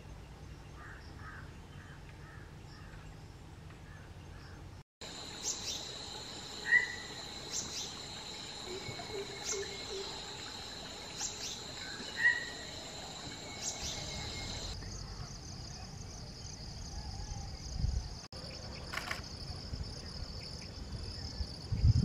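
Natural field ambience: a steady, high-pitched insect drone, with a few short, sharp bird calls over it. About two-thirds of the way in, the drone changes to a higher, pulsing buzz.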